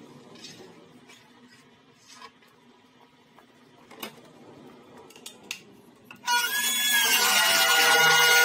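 A few light clicks and knocks, then about six seconds in a Festool plunge-cut track saw starts suddenly and runs at full speed with a steady whine, cutting into a thick walnut slab along its guide rail.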